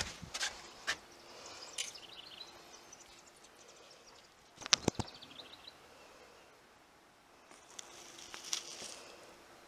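Quiet outdoor ambience with faint, short bird chirps. A few sharp clicks come near the start, and a cluster of louder knocks about five seconds in.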